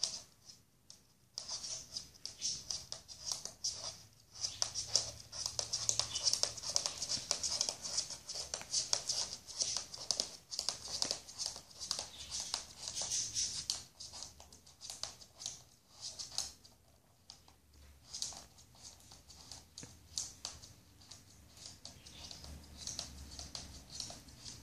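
Tortoise's claws clicking and scraping on a laminate floor as it walks, a dense, irregular patter of small clicks that starts about a second in and grows sparser in the second half.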